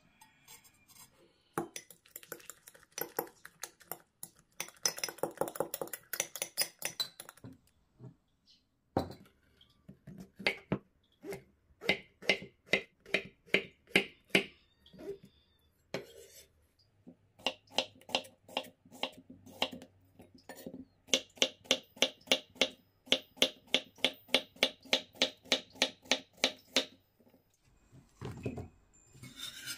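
Kitchen knife slicing vegetables on a wooden cutting board: a steady run of sharp chops about three a second, broken by a few short pauses.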